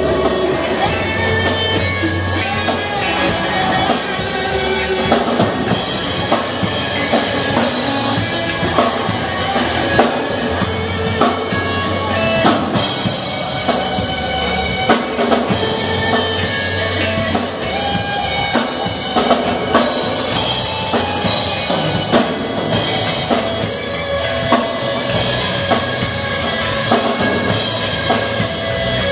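A live band playing: electric guitar, electric bass and drum kit, with the drums prominent.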